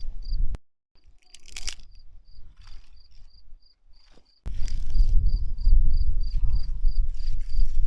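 A cricket chirping steadily, about three high chirps a second. A low rumbling noise comes in near the start and again from about halfway, with a few brief crackles in the quieter stretch between.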